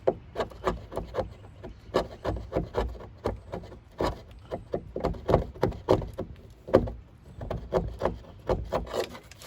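Quick, rasping hand strokes against hardened body filler, several a second, coming in runs with short pauses.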